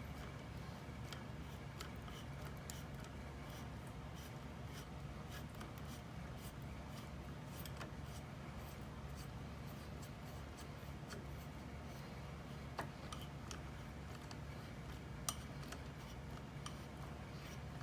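Faint scattered clicks and scrapes of tools and plastic parts being handled while the fog light housing screws are taken out, over a low steady hum. A sharper click comes about fifteen seconds in.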